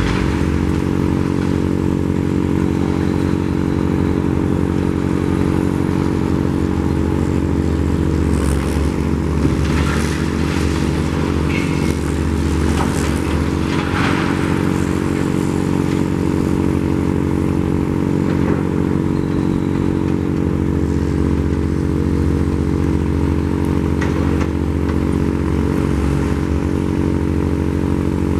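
Demolition crawler crane's diesel engine running steadily under load. A few short clatters of falling concrete debris come through in the middle.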